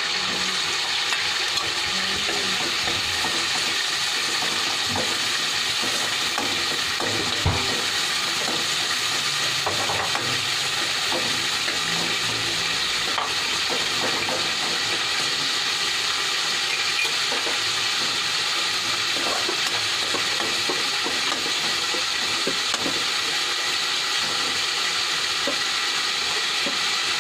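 Pork pieces sizzling steadily in hot oil in a wok, with an occasional light tap or scrape of a metal spoon as they are stirred.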